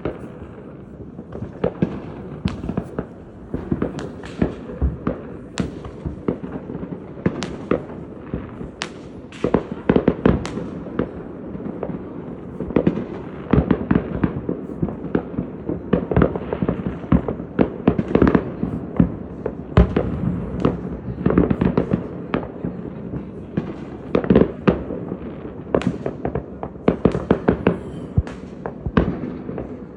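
Fireworks being set off continuously: a dense, irregular stream of bangs and pops, several a second.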